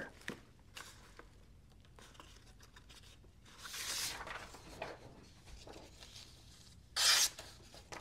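Pocket knife's flat-ground blade slicing through paper in two cuts: a longer, softer slice about halfway through and a short, sharper one near the end, testing its edge.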